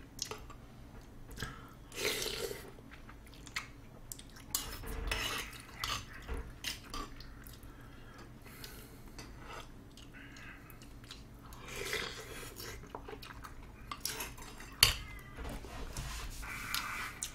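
A metal spoon and chopsticks clinking and scraping against a soup bowl and a steel tray while someone eats, with chewing between the clicks. One sharper clack comes near the end.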